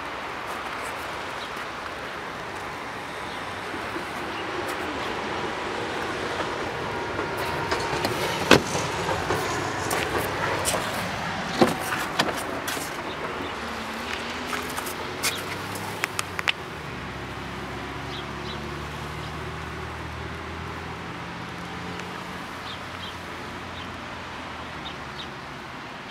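Motor vehicle noise that swells and then fades over several seconds, with a few sharp clicks and knocks in the middle, followed by a low steady engine hum that dies away.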